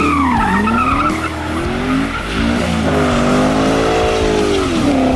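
Corvette C7's V8 revving up and down during a burnout, with the rear tyres spinning and squealing on the pavement.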